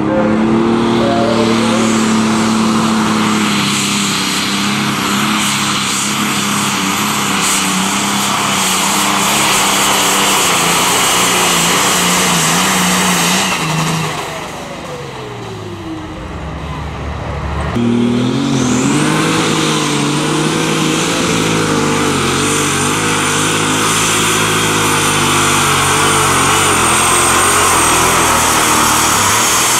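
John Deere pulling tractors' diesel engines at full throttle, dragging a weight-transfer sled down the track. About halfway through, the first engine's pitch slides down as its run ends. A few seconds later a second tractor comes up to full power with a high, steady turbo whistle over the engine.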